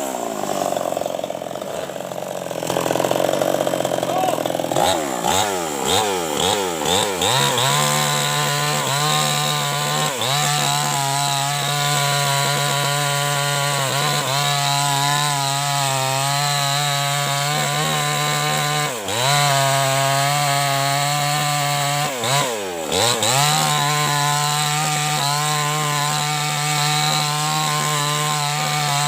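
Maestro 6500L two-stroke chainsaw revved up and down several times, then held at a steady high speed, dropping briefly twice about two-thirds of the way in before picking up again.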